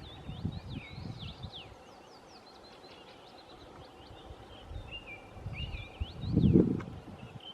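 Small songbirds singing and chirping in a busy, overlapping chorus of quick rising and falling notes. Low rumbles break in twice, briefly near the start and loudest about six and a half seconds in.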